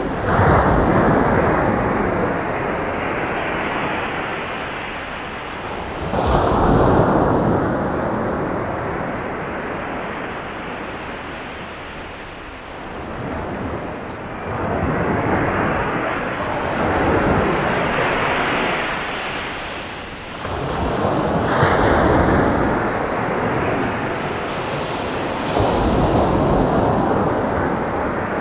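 Sea waves breaking on a beach: a rushing wash that swells up about five times, every five to eight seconds, and eases off in between.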